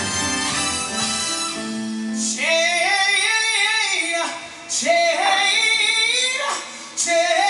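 Soul band recording: band instruments for about two seconds, then a woman's voice sings three long, bending phrases with little backing, with short breaks between them.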